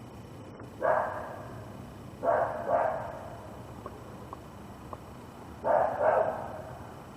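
A puppy barking at something: five barks, a single one about a second in, then a quick pair, then another pair near the end.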